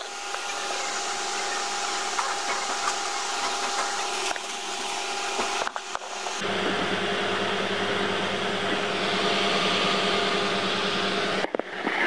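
Cooling fans of a running desktop computer on an open test bench, a steady whooshing noise with a faint hum. About six and a half seconds in, the noise turns lower and fuller.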